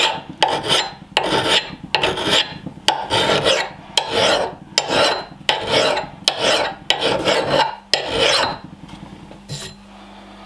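A medium file rasping in quick back-and-forth strokes, about two a second, across the steel cheek of a Rinaldi Calabria axe head just behind the edge. The strokes stop about eight and a half seconds in. The filing thins the bevel toward a slightly concave profile.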